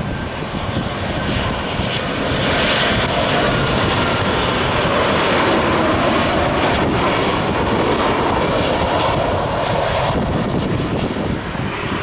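Boeing 737 jet engines on short final for landing: a steady rushing jet noise with a faint high whine, growing louder as the airliner passes close by and easing off near the end.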